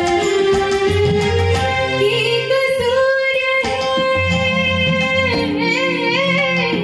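Female vocalist singing an Indian devotional song, holding one long note that wavers in vibrato near the end. Under her a synthesizer keyboard (Roland FA-06) plays sustained low notes and chords.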